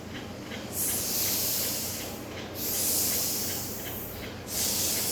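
Drawn-out 'sss' sounds made by voice, the sound of the letter S hissed like a snake, three long hisses with short breaks between them.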